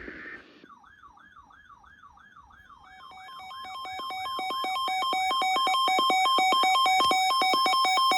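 Electronic warning-siren tone warbling up and down about three times a second. From about three seconds in, a rapid alternating two-tone beeping joins it and swells to full loudness. It is an alert sound leading into an emergency weather warning broadcast.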